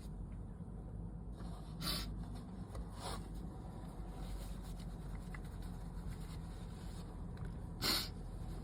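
Three short, sharp sniffs through a stuffy, itchy nose, about two seconds in, three seconds in and near the end, over a steady low hum.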